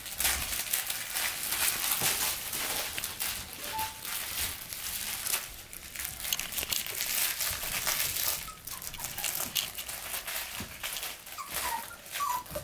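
Labradoodle puppies at play: constant crinkling and rustling of toys and bedding being chewed and tugged, with a few brief high squeaks near the end.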